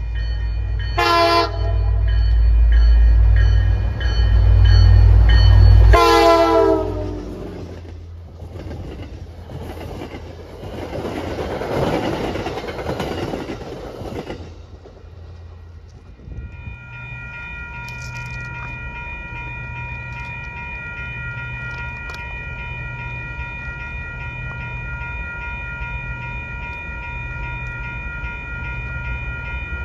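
MBTA F40PH-3C diesel locomotive sounding its Nathan K5LA five-chime horn over the heavy rumble of its engine: a short toot about a second in, then a long blast that drops in pitch as it passes, followed by the cars rolling by. Later comes a steady chord of several tones, held for over ten seconds.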